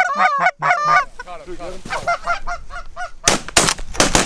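Rapid Canada goose honks, loud in the first second and then fainter, followed near the end by a quick volley of shotgun shots.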